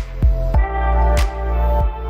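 Electronic intro music: deep bass and sustained synth chords over a steady drum beat, with the chord changing about half a second in.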